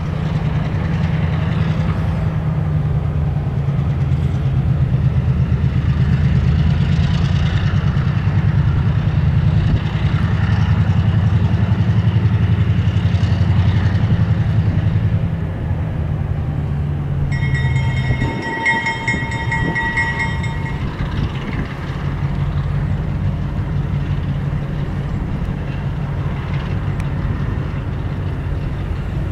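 Diesel locomotive engine running steadily with a strong low-pitched sound that eases off about 18 seconds in. Around 17 seconds in, a multi-tone train horn sounds once for about three and a half seconds.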